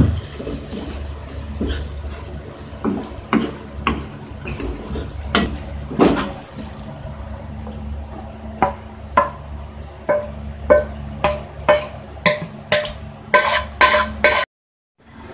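Wooden spatula stirring thick curry in a frying pan, with soft knocks against the pan over a steady hiss and hum that stops about halfway. Then comes a quick series of scrapes and ringing taps as the curry is scraped out of the pan onto rice in a bowl.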